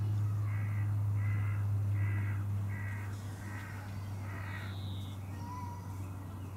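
Six short, harsh animal calls in an even series, about 0.7 s apart, over a steady low hum.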